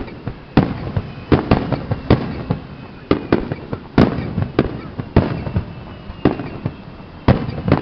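Aerial fireworks shells bursting in quick succession: a string of sharp bangs, about two a second at uneven spacing, each trailed by a short echo.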